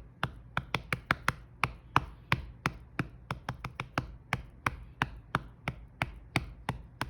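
A hand patting a Siamese cat's belly: quick, slightly uneven slaps, about three a second.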